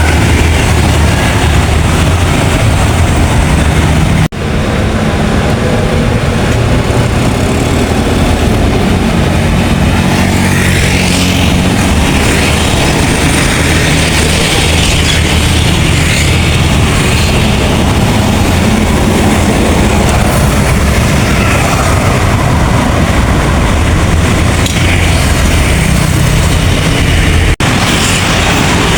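Large diesel buses running loud and close, a steady low engine drone over heavy road noise. The sound breaks off for an instant twice, about four seconds in and near the end.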